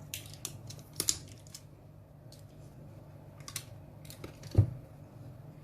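Cardboard retail box being handled and opened by hand: scattered light clicks, scrapes and rustles, with one dull thump about four and a half seconds in.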